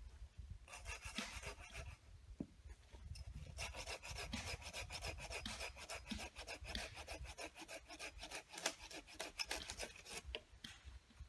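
Rapid, repeated rasping strokes in two runs: a short one about a second in and a longer one from about three and a half seconds to near the end.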